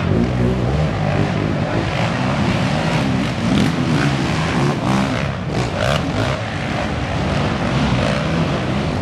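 Race quad (ATV) engine running and revving loudly as the quad is pushed and climbs a steep dirt hill.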